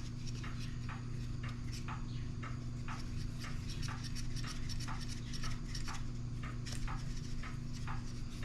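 Rusty one-hand maple-tubing tool being worked open and closed, giving a run of light, irregular clicks about two to three a second. The pivot is stiff with rust and is being freed up with WD-40.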